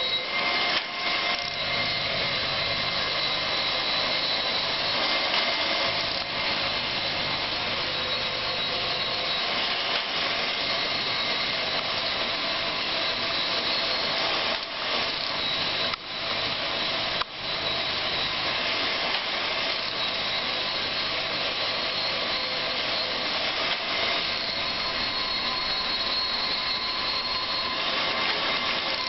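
Freshly rebuilt 1927 Brown & Sharpe No. 2 surface grinder running steadily, with a high whine over its machine noise.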